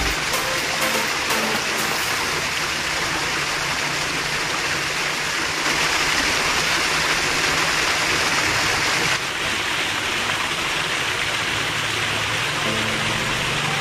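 Water rushing steadily along a small irrigation ditch. The sound drops slightly in level and brightness about nine seconds in.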